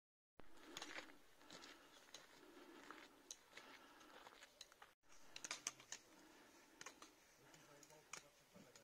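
Faint, irregular clicks and scuffs of hikers' footsteps and trekking-pole tips striking the path, with a brief break about five seconds in.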